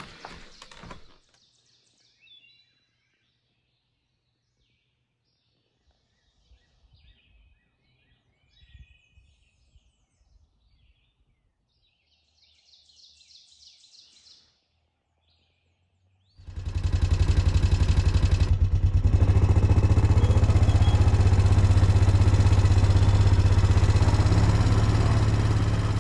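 Faint birds chirping, then about 16 seconds in a loud ATV engine cuts in, running steadily with a rapid pulsing beat as the four-wheeler is ridden down a gravel trail.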